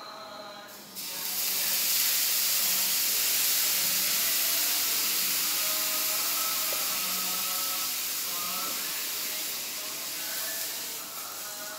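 Water sprinkled on a hot non-stick dosa tawa, sizzling with a loud steady hiss that starts about a second in and eases off near the end: the pan is hot enough for the batter.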